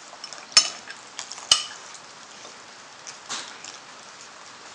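Metal spoon stirring a wet spice mix into a paste in a ceramic bowl, with two sharp clinks of the spoon against the bowl about half a second and a second and a half in, and softer scraping clicks in between.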